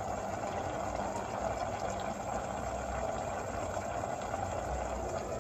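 Steady hiss of a gas stove burner heating a steel pot of chicken and chana dal as it cooks.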